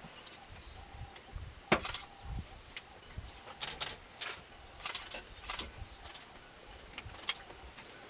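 African elephants pulling up and tearing dry grass with their trunks: a string of short, crisp rustles and snaps at irregular intervals, with soft low thumps beneath.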